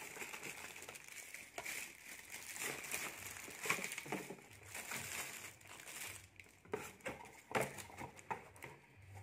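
Plastic packaging crinkling and cardboard product boxes rustling as they are handled and shifted, in irregular crinkles and rustles with a few sharper ones.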